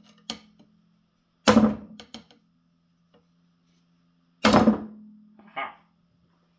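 Loud metal clanks as a long bar and socket are heaved on to break free a tight fastener on the end cap of an old John Deere two-cylinder tractor hydraulic cylinder: two sharp clanks about three seconds apart, each ringing briefly and followed by smaller knocks.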